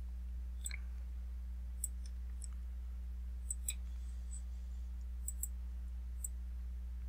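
Computer mouse clicking about eight times, some clicks in quick pairs, over a steady low hum.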